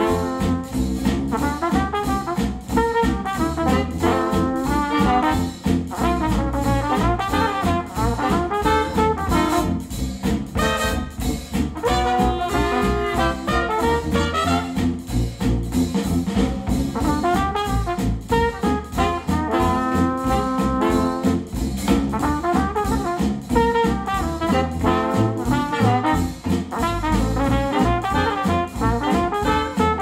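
Instrumental music with horns over a steady beat, played back through KEF Q150 bookshelf speakers driven by a NAD C 338 integrated amplifier.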